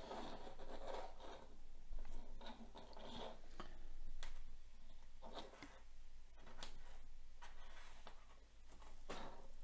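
Light handling noises, scattered soft scrapes, rustles and small clicks at an irregular pace, from jumper cables and an Arduino board being handled on a desk.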